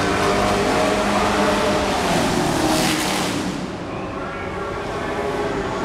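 Race trucks' engines running hard as the field laps the track, several engines blending together. The sound surges about three seconds in as trucks go by, then eases a little.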